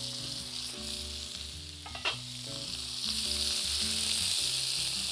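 Meat rib pieces searing in hot oil in a frying pan, a steady sizzle that grows louder about three seconds in, with one short knock about two seconds in.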